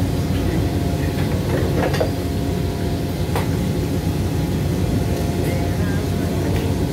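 Engine running with a steady low drone, with a few sharp knocks about two seconds and three and a half seconds in.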